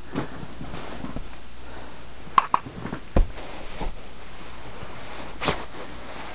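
Camera handling noise: a few short knocks and bumps over a steady hiss as the camera is pressed against a puppy's head and fur.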